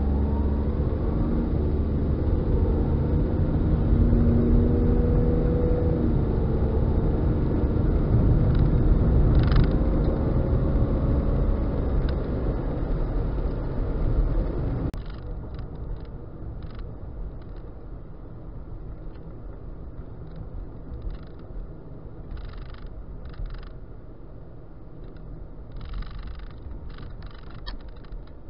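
Car cabin driving noise picked up by a cheap dashcam's built-in microphone: a loud, steady engine and road rumble with a hum that shifts in pitch. About halfway through, at a cut, it drops to a quieter rumble with scattered short rattly noises.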